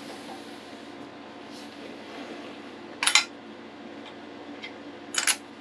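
Two short clattering knocks about two seconds apart, the second doubled, from thread spools and small parts being handled on a rod-wrapping machine's thread carriage. A steady hum of a room air conditioner runs underneath.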